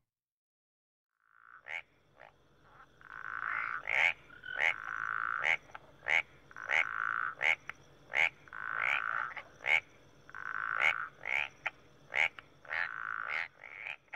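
Frogs calling: after a short silence, a run of buzzing calls about a second long keeps alternating with short, sharp chirps.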